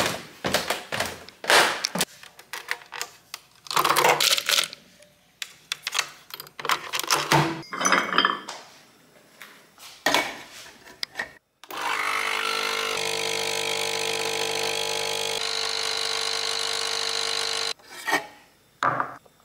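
Capsule coffee machine pump buzzing steadily for about six seconds as it brews into a cup, then stopping abruptly. Before it, a run of clicks and knocks from handling the machine and the cup.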